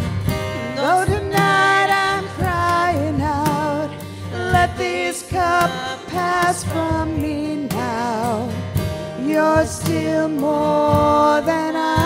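Live worship song: women's voices singing a slow melody with vibrato over a strummed acoustic guitar.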